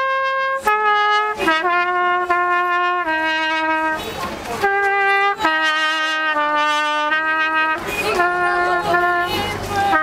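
Solo trumpet playing a slow melody of long held notes, one note at a time, with short breaks between phrases.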